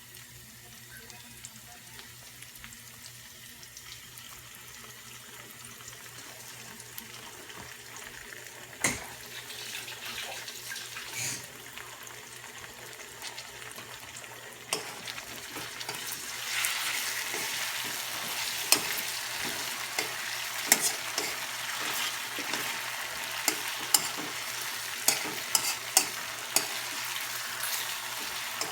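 Garlic and onion frying in margarine in a pan on low heat: a faint sizzle at first that grows much louder about halfway through as the marinated chicken wings go in. Sharp clicks of a utensil stirring against the pan come in the second half.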